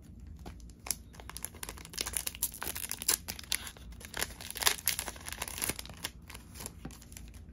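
A trading-card booster pack's wrapper being torn open and crinkled by hand: a dense run of sharp crackles that is thickest in the middle and dies away near the end.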